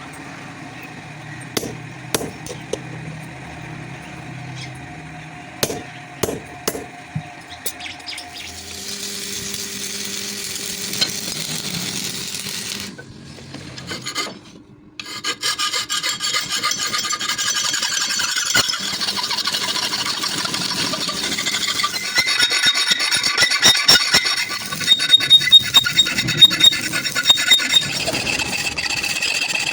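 Light metal taps and clinks for the first several seconds, then a hand tool rasping on steel in repeated back-and-forth strokes, growing louder and more rhythmic after a short pause midway.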